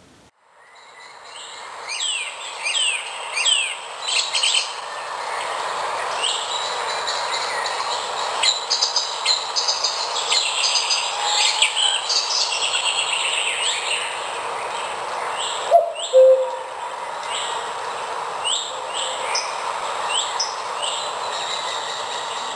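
Recorded birdsong: many quick chirps and whistled calls over a steady rushing background, fading in during the first two seconds.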